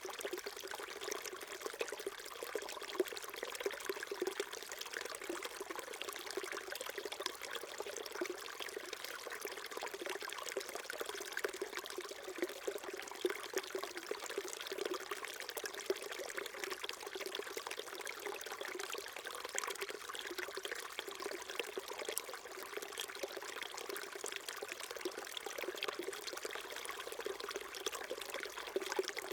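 Small stream babbling and trickling steadily over rocks, a continuous gurgle with fine splashy detail.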